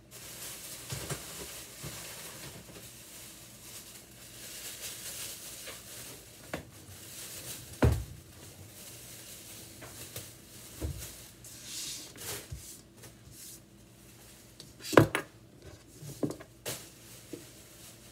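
Kitchen handling sounds around a plastic cutting board: rustling and scraping as items are cleared and moved, with several knocks and clatters, a sharp one about eight seconds in and the loudest about fifteen seconds in.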